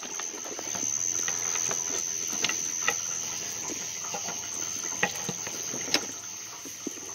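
Engine coolant trickling and dripping from a half-loosened water pump into a drain pan: a soft steady patter with scattered small ticks of drops.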